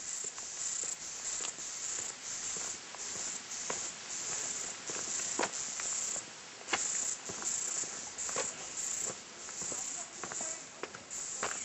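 A chorus of insects: a high buzz that swells and fades about twice a second, with scattered footsteps on a leafy dirt path.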